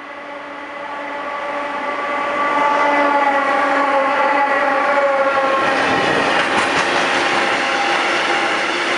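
Freight train passing close by: the approaching locomotive gives a growing, humming whine with several pitches that drops in pitch as it goes past, then the freight wagons follow with a loud rolling rumble and some clacks of wheels over rail joints.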